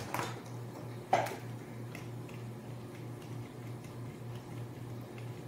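Small clicks and taps of a wire and screwdriver being worked at the screw terminals of plastic contactors, with one sharper knock about a second in, over a steady low hum.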